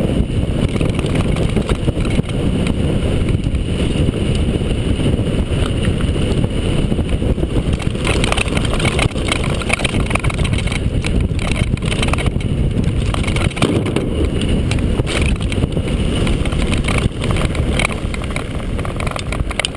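Mountain bike descending a dirt and gravel trail at speed: wind buffeting the action camera's microphone in a loud, steady rumble, with the tyres crunching over stones and the bike rattling in short clicks and knocks. It eases a little near the end as the bike reaches flat ground.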